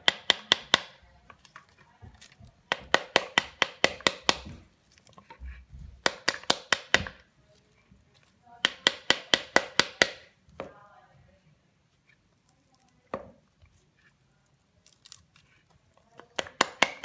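A metal spoon beating the back of a pomegranate half, knocking the arils loose into a plastic bowl. It comes in quick volleys of about six to eight sharp whacks, each volley about a second long, with pauses and a couple of single whacks between.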